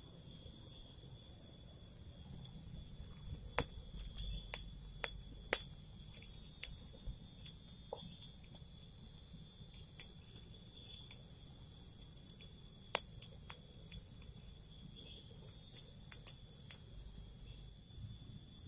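Steady high-pitched insect chorus, several insects each holding a level tone, with sharp clicks and cracks scattered through it, the loudest about four to six seconds in and again near thirteen seconds.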